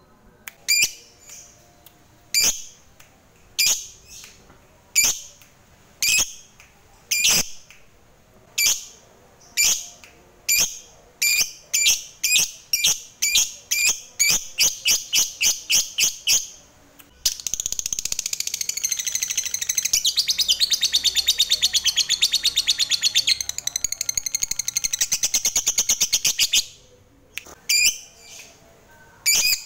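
Lovebird calling: sharp single high chirps about a second apart that come faster, then about a second past the midpoint a continuous rapid chattering trill lasting nearly ten seconds, the long 'ngekek' that lovebird keepers prize, and a few more chirps near the end.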